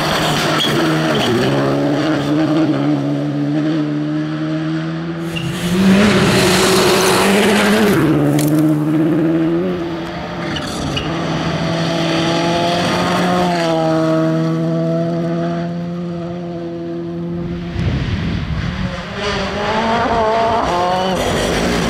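Rally cars at full throttle on a gravel stage, one after another, engines revving up and down through gear changes. About six seconds in there is a loud spray of gravel from the tyres.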